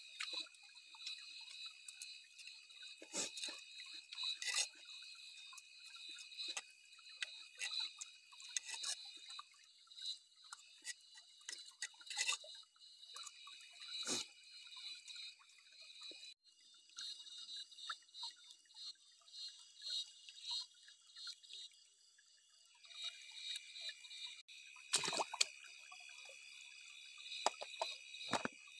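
A faint, steady high-pitched chorus of calling creatures, one of its voices falling silent for several seconds midway and then coming back. Over it come scattered drips and sharp clicks.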